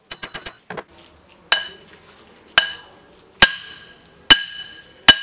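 Hammer blows driving a new oil seal into a Honda SH300i front fork slider, striking the old seal used as a driver: five heavy strikes about a second apart, each leaving a metallic ring. A quick run of four light clicks comes at the start.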